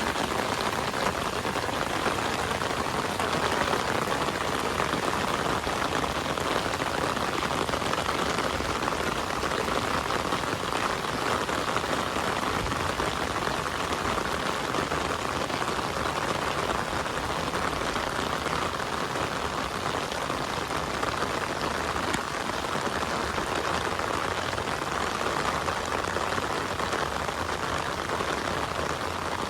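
Heavy rain falling steadily, an even hiss of drops on surfaces.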